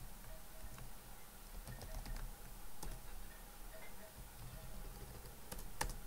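Computer keyboard typing: keys clicking irregularly as a command is typed, with two sharper key strikes near the end.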